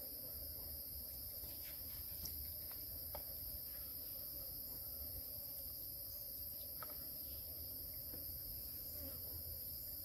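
Steady, high-pitched insect chirring at two constant pitches, unbroken throughout, with a few faint clicks.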